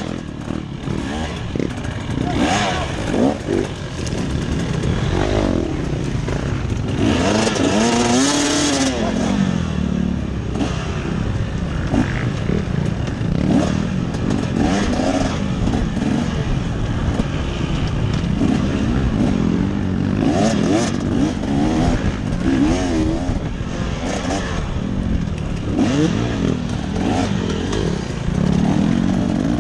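Vehicle engine running and revving, its pitch rising and falling again and again.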